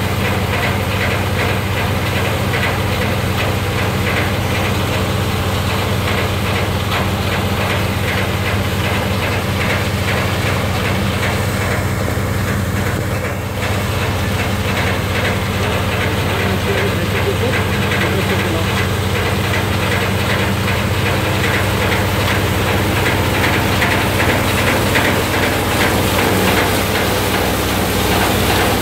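SKumar model 777 multicrop thresher running: a steady low machine hum with a dense, rapid clatter over it. The sound eases briefly about halfway through.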